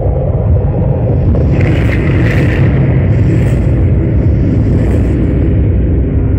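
Light-show soundtrack over loudspeakers: a loud, deep rumble with whooshing swells about two, three and a half, and five seconds in.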